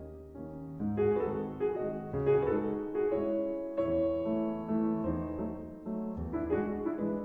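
Background piano music, with notes and chords changing about once a second.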